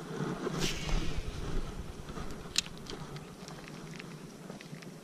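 Casting and working a bait with a baitcasting rod and reel, over a steady rush of wind on the microphone. There is a short swish about half a second in and a single sharp click about two and a half seconds in, then a few faint ticks.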